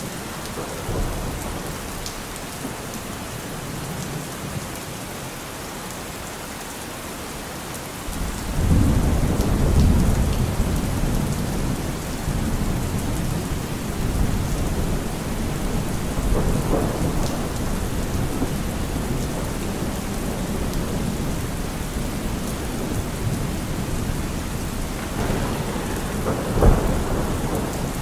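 Steady rain falling, with thunder: a low rumble comes in suddenly about a third of the way through and rolls on for several seconds, swells again later, and a sharper clap of thunder sounds near the end.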